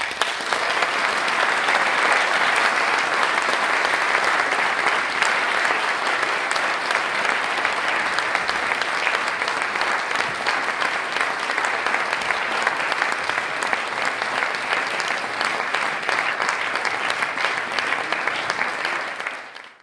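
Audience applause in a hall: many people clapping steadily, dying away just at the end.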